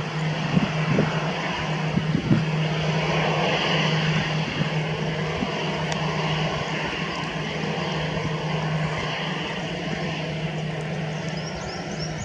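Jet engines of an Airbus A320 airliner running at the airport: a steady rush of noise over a low steady hum, swelling slightly about three to four seconds in and then easing a little.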